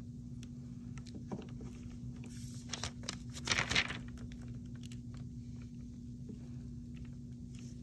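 Soft handling noises: gloved fingers rustling and light clicks and scrapes as a micro brush is pushed between the tight front teeth of a plastic dental typodont. The rustling is louder for about a second around three seconds in, over a steady low hum.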